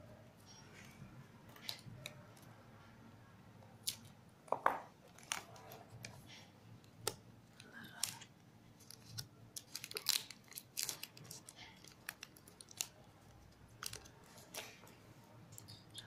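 Hands working a paper-covered cardboard box and adhesive tape: scattered short crinkles, taps and clicks, the sharpest about 4 to 5 seconds in and again around 10 seconds.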